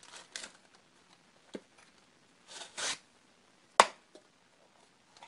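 Plastic wrapping of a phone holster rustling in a few short crinkles as it is unwrapped and handled, then one sharp knock about four seconds in, with a fainter tap just after.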